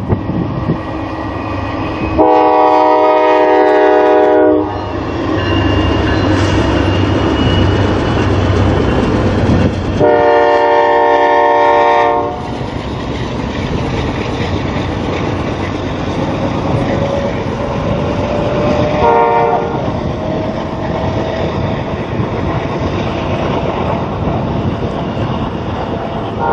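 A diesel freight locomotive's air horn sounds two long blasts and then a short one as a double-stack intermodal train approaches and passes. Under the horn is the steady rumble of the lead diesel units working under throttle and the running noise of the wheels and container cars on the rails.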